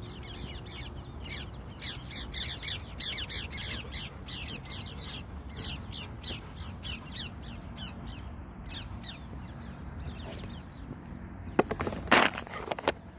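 A flock of birds giving short, harsh, crow-like calls several times a second, thinning out after about ten seconds, over a steady low rumble. Near the end, loud scuffing bursts close to the microphone as the dog dashes past.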